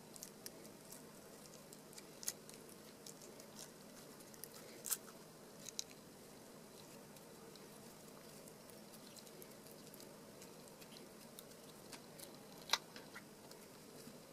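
Small crackles and clicks of dried plaster being picked and crumbled off a freshly cast plaster skateboard wheel by fingers, with a few sharper snaps, the sharpest near the end, over a faint steady hum.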